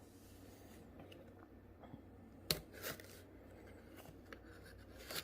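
Small cardboard booster box being handled: a few light taps and rustles, the loudest two close together about halfway through.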